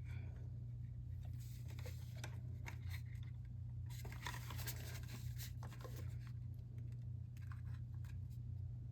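Faint rustling and small clicks of hands working on model rocket parts, over a steady low electrical hum.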